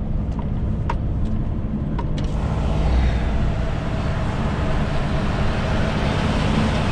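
A DAF XF 530 truck's diesel engine running with a steady low drone under road noise. There are a few light clicks in the first two seconds, and a rushing hiss swells in about two seconds in and stays.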